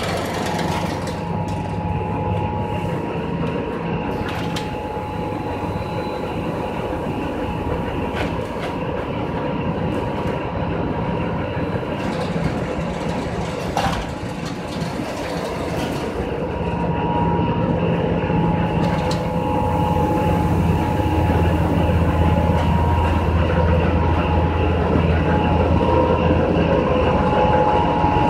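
Machinery of a water-soluble fertilizer production line running: a steady mechanical noise with a low hum and two higher steady whining tones, broken by a few sharp clicks. It grows louder about two-thirds of the way through.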